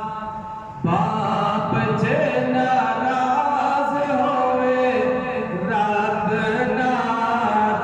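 A man's unaccompanied voice chanting a devotional recitation into a microphone, holding long, wavering notes; a brief breath break comes just under a second in before the next phrase.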